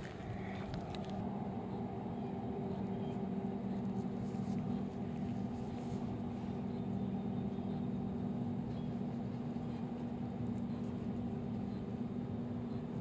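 Steady engine-like hum, held at one constant pitch throughout.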